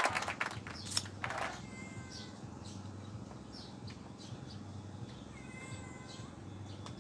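Faint animal calls, heard twice as short wavering cries, over a low steady hum. A couple of sharp knocks come about a second in.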